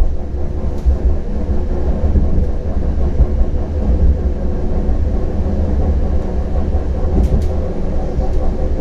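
CAF Urbos 100 tram heard from on board: a steady low rumble with a hum of several steady tones above it, and a couple of faint ticks.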